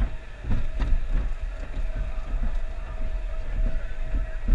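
Mine-train roller coaster car climbing the lift hill: rhythmic clacking from the track and lift about three times a second over a steady hum and low rumble.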